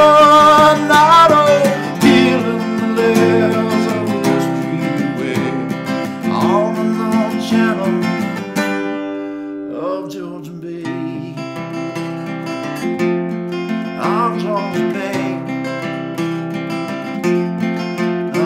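Instrumental ending of a folk song: a Takamine acoustic guitar strummed, with a cello holding long low notes beneath it. A sung note trails off in the first second or two.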